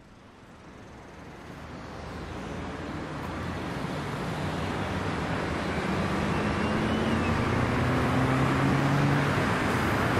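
A vehicle engine running under a rushing noise that swells steadily louder throughout. About halfway in, a low hum with a slowly rising pitch comes in.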